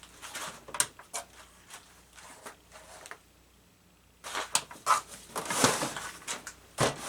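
Scattered clicks, knocks and rustling of hands handling the 3D printer's power cable and switch, with a short lull about three seconds in and denser rustling after it.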